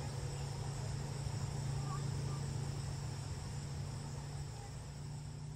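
Insects trilling steadily, with a low steady hum underneath; both fade out near the end.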